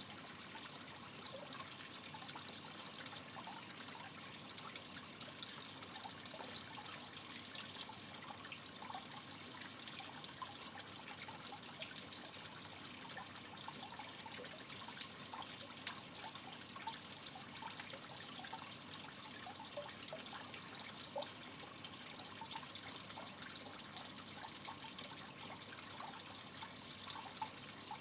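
Water in an aquarium trickling steadily, with faint scattered small pops and drips.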